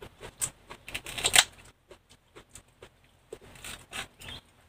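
Chopsticks clicking and scraping against a metal wok and the crab shells inside it: scattered light taps, with a louder cluster of clicks a little over a second in.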